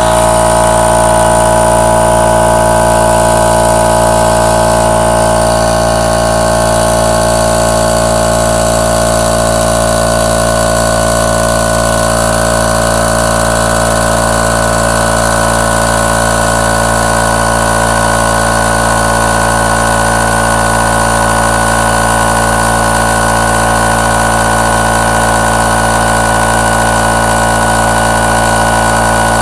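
Harbor Freight 10-gallon air compressor running steadily, its electric motor and pump filling the tank while drawing about 13.5 amps.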